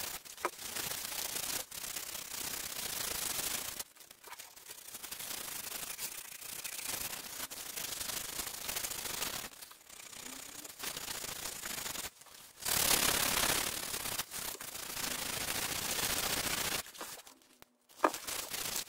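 Sandpaper rubbed by hand over a freshly shaped oak handle, in stretches of scratchy strokes with short breaks between them. A sharp click near the end.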